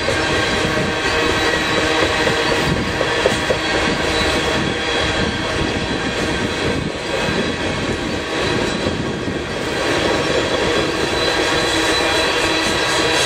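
Freight train cars rolling past on the rails: a steady, loud run of wheel noise with several sustained tones held over it.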